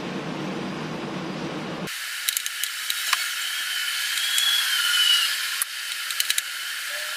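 A steady hiss, then, about two seconds in, a run of light sharp clicks and taps as a silicone spatula knocks against a plate, a knife and a bowl while frosting is spread over a cake layer. A faint thin whistling tone wavers for about two seconds in the middle.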